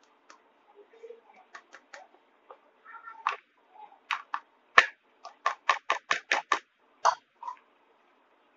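Steel flour sieve tapped while flour is sifted through it into a bowl: a few light clicks at first, then a quick run of sharp taps, about four a second, from about four to seven seconds in.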